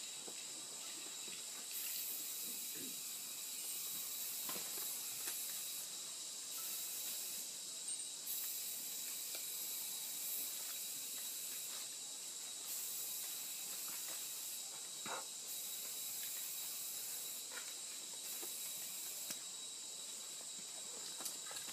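Outdoor insect chorus: a steady high hiss with a thin continuous tone, its highest layer cutting in and out every few seconds, with a few faint knocks.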